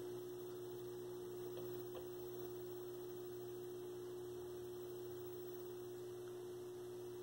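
Vintage vacuum-tube television set running: a steady mid-pitched tone over a faint low hum, unchanging throughout.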